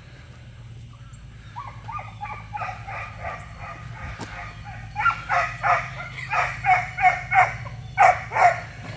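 Giant Schnauzer puppy barking in quick runs, about three barks a second, starting softly about a second and a half in and getting much louder halfway through. A low steady hum runs underneath.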